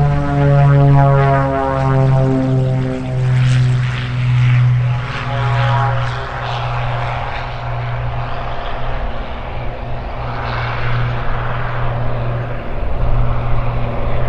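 Light twin-engine piston airplane taking off at full power: the engine drone slides down in pitch as it passes and climbs away, with a slow regular pulsing in its loudness.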